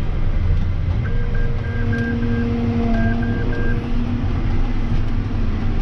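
John Deere 6175M tractor running steadily, heard from inside the cab. About a second in come two runs of short, high electronic beeps, five then three, over a steady whine.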